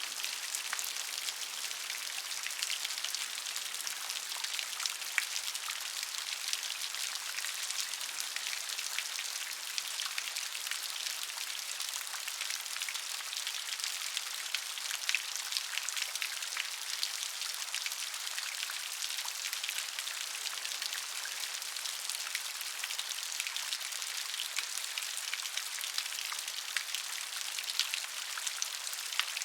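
Steady rain with many fine, closely spaced drop ticks pattering on a surface, no thunder or other sounds.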